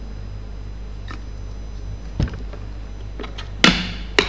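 Hard plastic clicks from a clip-lock food container being handled and its lid snapped shut, with a soft knock about two seconds in and two loud sharp snaps near the end, about half a second apart. A steady low hum lies underneath.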